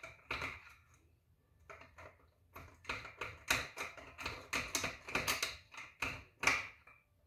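Hand ratchet clicking in quick runs as bolts are backed out of the engine case, with a short pause about a second in.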